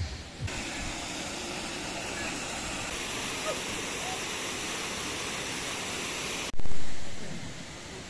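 Waterfall water rushing steadily. Near the end a sudden loud whoosh breaks in and fades away over about a second.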